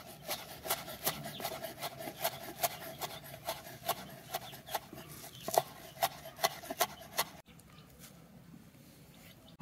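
Kitchen knife chopping fresh mint leaves on a wooden cutting board: a steady run of quick blade strikes, about three a second, that stops about three-quarters of the way through.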